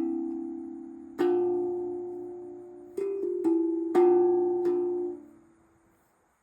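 Tongue drum in D Kurd tuning with a B flat ding, about seven notes struck one after another, each ringing out and decaying. The notes overlap, and the last ring fades away about a second before the end.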